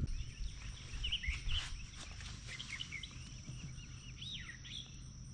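Birds chirping with short, sweeping calls over a steady, high-pitched insect drone, with a low rumble from wind or handling.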